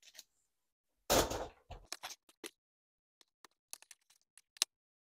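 Plastic N scale model train track sections being pulled up and handled. There is a clatter about a second in, then a few small clicks and a run of light ticks.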